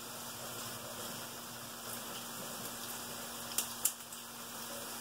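Fries frying in a skillet, a steady sizzle, with two short clicks about three and a half seconds in.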